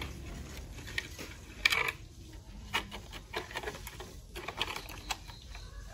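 A cut plastic bottle, wire and tube being handled and fitted together: scattered clicks and crackles of thin plastic, the loudest a sharp clack a little under two seconds in.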